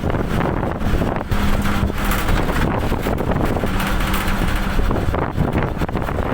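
Wind buffeting the microphone over a steadily running engine.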